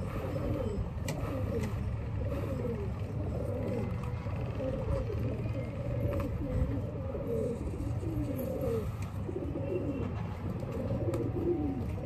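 Domestic pigeons cooing in a loft, one falling coo after another and sometimes overlapping, over a steady low rumble.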